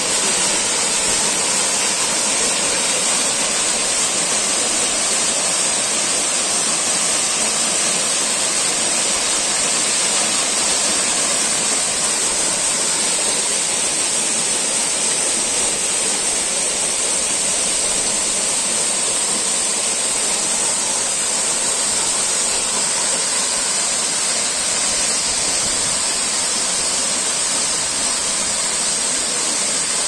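Waterfall pouring down a rock face into a pool: a loud, steady rush of falling water.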